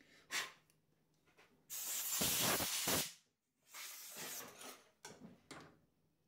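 Compressed-air blow gun hissing in several blasts, clearing swarf from a freshly cut thread on a lathe: a short puff near the start, a long loud blast around two seconds in, a shorter one around four seconds, and two quick puffs near the end.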